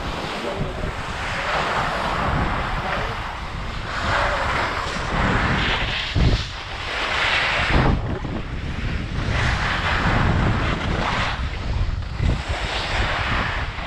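Skis sliding and scraping over packed snow through a series of turns, a hiss that swells every second or two, over low wind buffeting on the camera's microphone.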